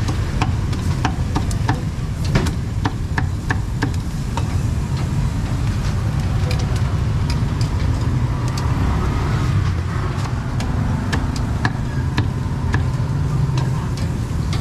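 Busy street ambience: a steady low rumble of road traffic with many scattered sharp clicks and clatters, like utensils and stall work.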